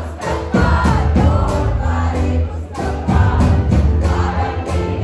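Live band playing a song with a crowd singing along in chorus over a steady drum beat.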